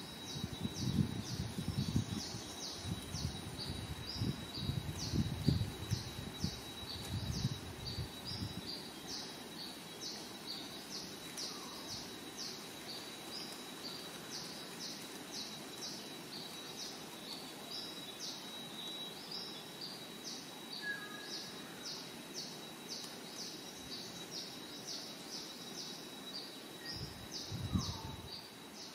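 Tropical outdoor ambience: short high-pitched chirps repeating two to three times a second over a steady high-pitched drone, with low rumbles in the first eight seconds and again briefly near the end.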